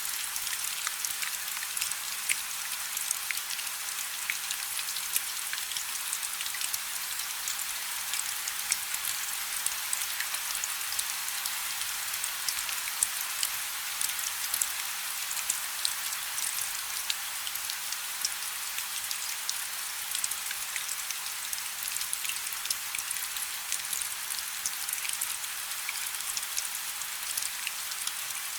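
Steady rain falling, a dense hiss of drops with many small sharp patters of individual drops striking a surface.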